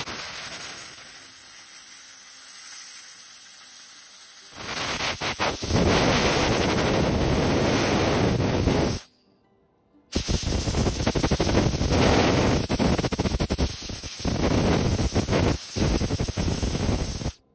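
Ultrasonic cleaner running with a steady high hiss as it cleans brass carburettor floats; it grows louder about four seconds in, cuts out for about a second near the middle, then carries on.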